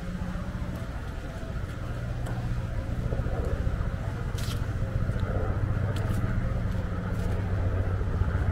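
Road traffic: a car's engine and tyres humming steadily, growing louder about three seconds in as it comes closer, with a few faint clicks.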